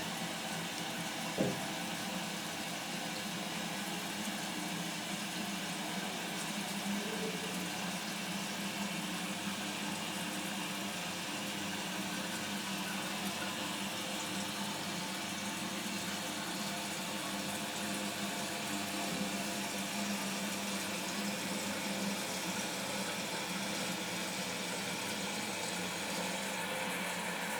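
Toilet cistern refilling after a flush: a steady hiss of water running into the tank, with a single small click about a second and a half in.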